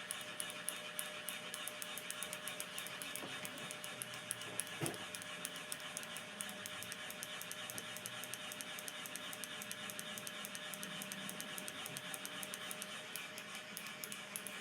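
Ceiling fan running with a steady hum and a rapid, regular ticking, with a single knock about five seconds in.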